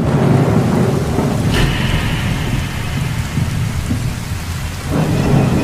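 Heavy rain pouring over a deep, continuous rumble of thunder, with a sudden crack about one and a half seconds in.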